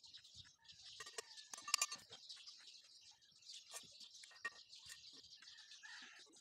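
Faint building-site ambience: a steady high hiss with scattered light clicks and taps, and a few short chirp-like sounds.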